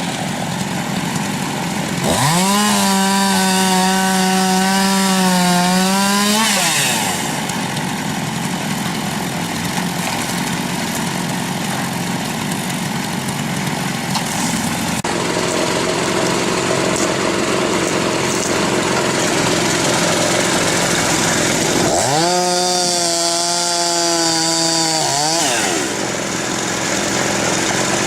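A power saw on a firewood machine revs up to a high, steady pitch and holds it for about four seconds while cutting, then drops off. The same happens again for about three seconds near the end, over a machine engine running steadily throughout.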